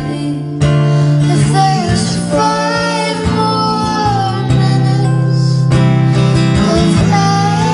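A song: a female voice singing a slow melody over plucked acoustic guitar.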